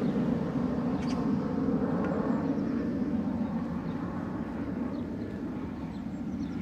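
Steady low engine rumble from distant motor traffic, slowly fading.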